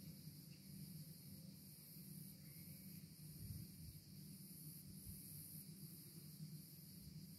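Near silence: faint outdoor background with a low rumble and a steady, faint high hiss.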